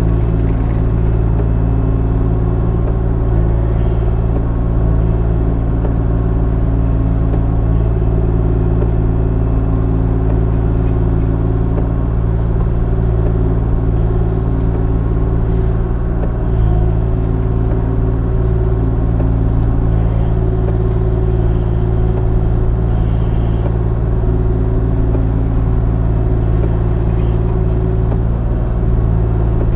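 Kubota KX040 mini excavator's diesel engine running steadily under load, driving a Brush Hound FX-26 Defender brush mulcher head as it cuts. A higher tone steps up and down every second or two as the mulcher works.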